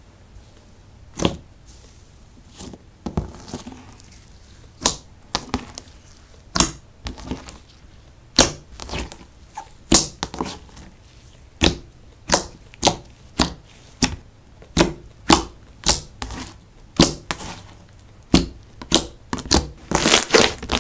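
Slime being pressed and squished by hand, making a series of sharp popping clicks as trapped air bursts. There are a few pops at first, then about two a second, coming faster near the end.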